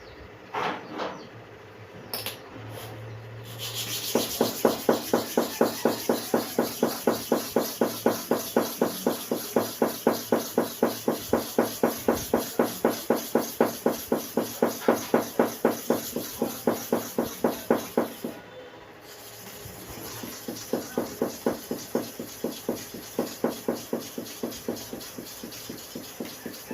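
A hair-clipper blade rubbed back and forth on a sharpening stone, about three strokes a second. It stops briefly about two-thirds of the way through, then the rubbing resumes more lightly.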